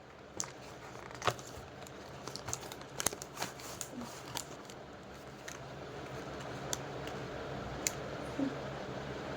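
Scattered small clicks and taps with light rustling: a box of Doms paint colours and its packaging being handled and opened by hand.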